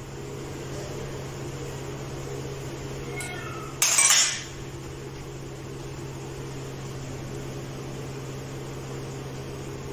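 Glass bowls and a spoon being handled at a kitchen counter over a steady low hum. About four seconds in, a short, loud clatter of dishes comes just after a faint clink.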